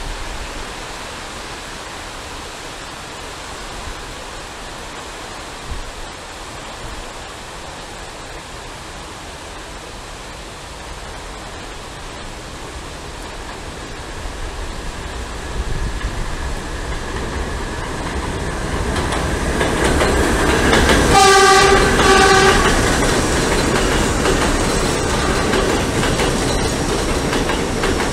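Steady hiss of rain, then an R68 subway train approaching with a rumble that grows louder. About two thirds of the way in it sounds one horn blast of about a second and a half, and then it runs in alongside the platform with loud wheel clatter on the rails.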